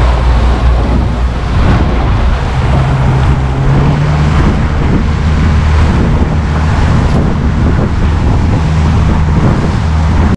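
A motor launch's engine running steadily under way, with wind buffeting the microphone.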